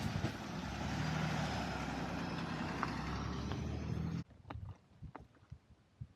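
Route bus running, heard from inside as a steady deep engine and road noise, which cuts off suddenly about four seconds in; a few faint clicks follow in the quiet.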